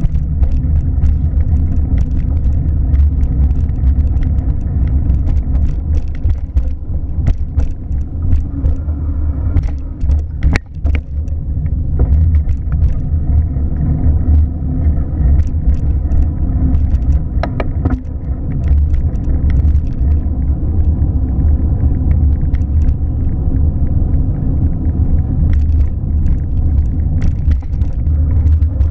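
Steady low rumble of a car in motion, with scattered light clicks and knocks and a brief dip in the rumble about ten seconds in.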